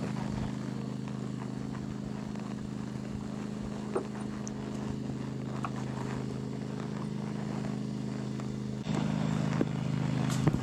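A machine's engine running steadily with a low hum, growing louder about nine seconds in. A few sharp clicks sound over it.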